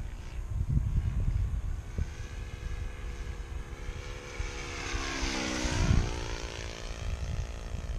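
Model airplane's Magnum 30 four-stroke engine and propeller in a low flyby, growing louder as it approaches, then dropping in pitch as it passes overhead about five to six seconds in.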